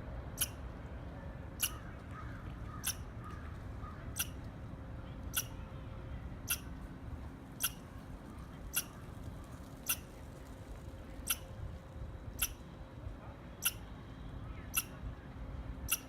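Squirrel chirping: a short, sharp, high call repeated at an even pace, about once a second.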